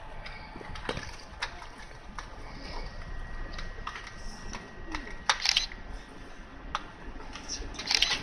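Scattered sharp clicks and metallic clinks of hand tools on sign fittings, a worker fastening a station name sign. There is a short clatter of several clicks about five seconds in and another near the end.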